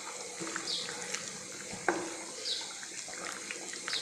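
Rice and water bubbling and sloshing in a pan as a spatula stirs it, with a single knock about two seconds in.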